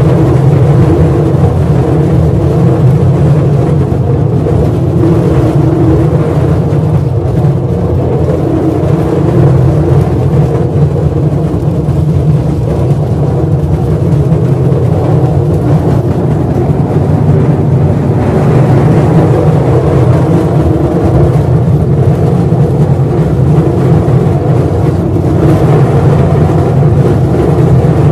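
Mine train running through the mine tunnel, heard from inside the car: a loud, steady, deep rumble, with more high-pitched noise joining about two-thirds of the way through.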